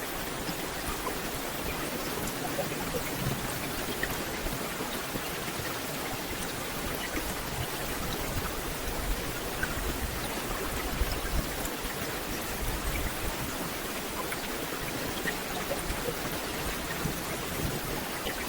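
Steady rain falling through forest foliage: a dense, even hiss speckled with individual drops ticking on leaves.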